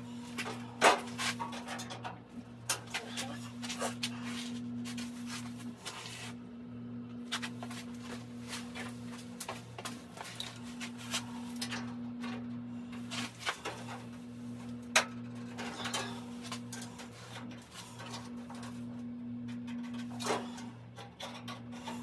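Hand-cutting a patch shape at the workbench: a run of irregular sharp snips and clicks, a few much louder, over a steady low hum that pulses on and off.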